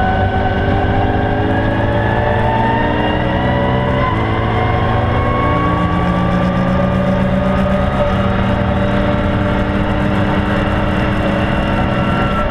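BMW E92 M3's 4.0-litre V8 engine pulling hard under full throttle, heard from inside the cabin, its note climbing slowly and steadily as the car accelerates.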